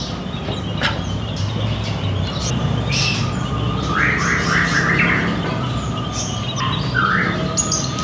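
Several caged birds chirping and calling over one another, with a quick run of about five short chirps about four seconds in and a shorter burst of chirps about seven seconds in.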